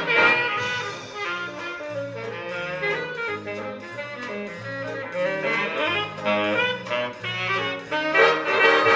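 Instrumental swing jazz with a brass and saxophone section over a stepping bass line, played back through a Klangfilm field-coil loudspeaker and amplifier. The horns are loud at the start and again near the end, softer in between.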